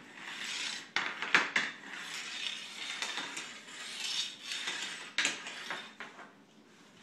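Floor hockey sticks clattering and scraping on a tile floor, with a few sharp clacks.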